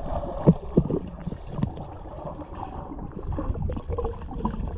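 Lake water splashing and gurgling right at the microphone, muffled, with a couple of sharp splashes in the first second.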